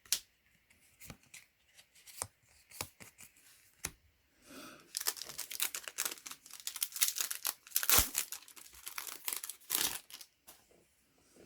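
A few scattered light clicks, then about five seconds of crinkling and tearing as a foil Yu-Gi-Oh booster pack is ripped open.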